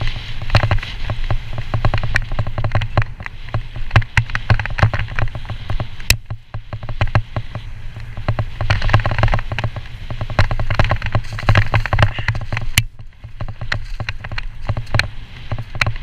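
2018 Trek Slash 9.8 29er full-suspension mountain bike descending rough dirt singletrack at speed: constant rattling and clattering of the bike and tyres over rocks and ruts, with wind buffeting the microphone as a low rumble. The clatter drops away briefly about six seconds in and again about thirteen seconds in.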